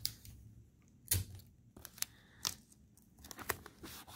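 Hands handling a paper sheet taped to a cardboard tissue box: a few short, sharp rustles of paper and tape, the loudest about a second in.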